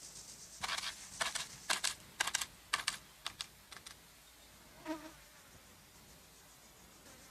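Cartoon sound effect: an irregular run of quick, dry, scratchy clicks lasting about three seconds, followed by one short squeak about five seconds in.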